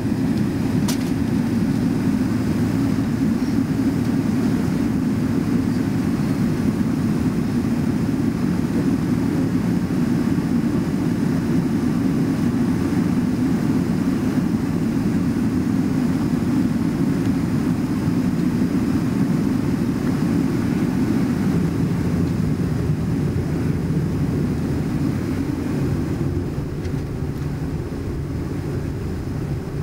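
Steady low rumble of a Boeing 777-300ER's GE90 engines at taxi power, heard inside the passenger cabin, easing slightly near the end.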